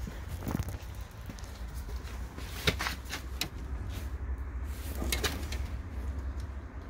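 Footsteps on a concrete floor: a few sharp scuffs and clicks, bunched about a third of the way in and again a little past halfway, over a steady low rumble from handling the camera.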